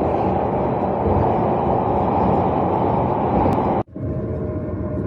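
Shinkansen bullet train running noise, a loud steady rumble and rush. A little under four seconds in it cuts off abruptly and a different, somewhat quieter steady hum with faint steady tones takes over.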